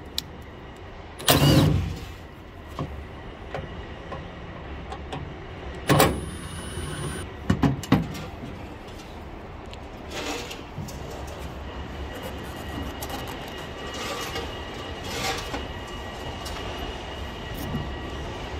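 Cordless impact driver with a T25 Torx bit backing out the taillight screws in two short loud runs, then sharp clicks and plastic rubbing as the taillight housing is worked loose and slid out of its clips.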